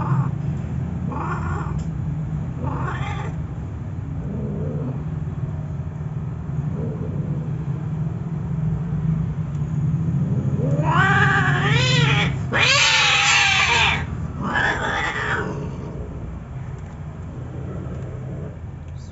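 Cats mating, the Siamese female yowling: short yowls in the first few seconds, then a long, loud, wavering yowl about eleven seconds in that turns into a harsh screech, and one more yowl after it. This is the cry a queen gives as mating ends. A steady low hum runs underneath.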